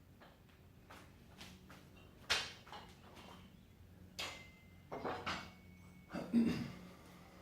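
A run of short, irregular knocks and clatters, about eight in all, the loudest about two seconds in and about six seconds in, the later one with a dull thud, over a faint steady hum.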